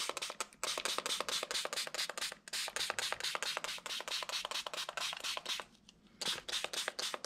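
A small plastic spray bottle squirting water onto a sheet of paper in quick short bursts, several a second, with a few brief pauses.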